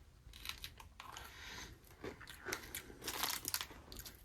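Faint crunching and chewing of a crisp cream-coated biscuit stick (matcha Pocky), with a few louder crunches about three seconds in.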